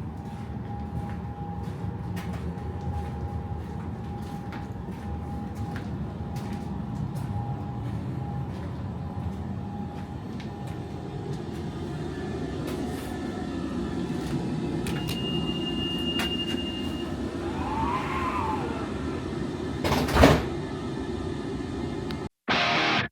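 Tram standing with its electrical equipment humming steadily. A short high beep sounds, then a single loud knock about 20 seconds in, typical of the tram's doors closing before departure. Rock music cuts in at the very end.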